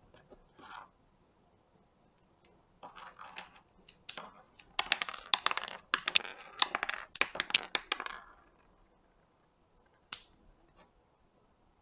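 Small sharp clicks and rattles of a miniature Glock 17 keychain toy pistol being handled, coming in a rapid cluster in the middle, with one more click near the end.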